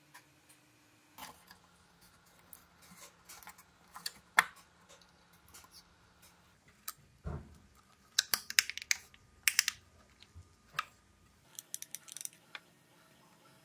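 Scattered clicks, taps and light knocks of hands handling small 3D-printed plastic parts on a plywood panel, with quick runs of clicking a little past halfway and again near the end.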